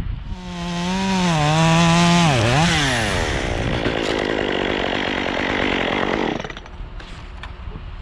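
Gas chainsaw running at high revs, its pitch dipping and climbing back about two and a half seconds in, then cutting into oak wood until it lets off about six and a half seconds in.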